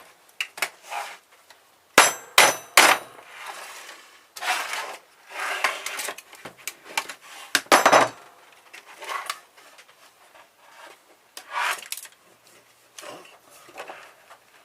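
Small crowbar prying at a car stereo's metal housing: metal clinks, clanks and scraping as the tabs are worked loose. Three sharp clanks come about two seconds in, a loud one near eight seconds, and scraping runs between them.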